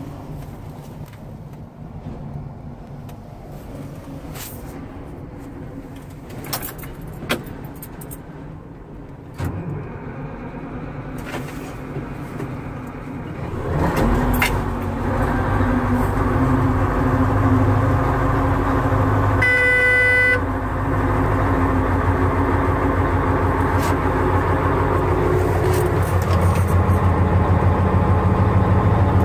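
Caterpillar 834B wheel dozer's diesel engine cold-starting: a few clicks over the first dozen seconds, then the engine fires about halfway through and settles into a steady low-pitched run. A horn-like tone sounds for under a second a few seconds after it catches.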